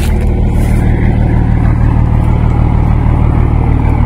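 Scania truck's diesel engine idling steadily, heard close to its exhaust outlet.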